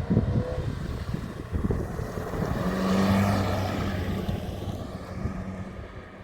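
A motor vehicle's engine hum that swells to a peak about three seconds in and then fades, as if passing close by, with short low thumps throughout.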